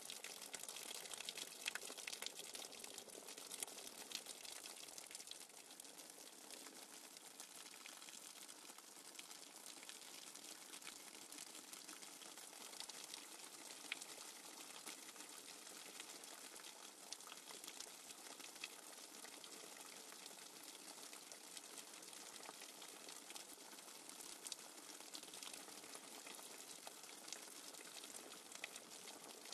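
Faint recorded nature soundtrack of running water: a steady, even hiss with small splashes and ticks scattered through it.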